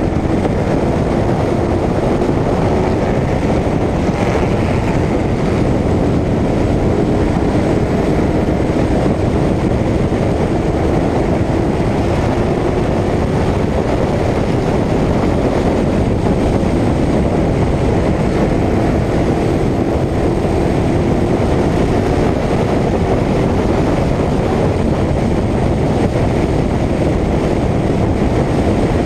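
Short-track race car engine running hard at racing speed, heard from inside the car: a loud, steady drone whose pitch rises and falls only slightly.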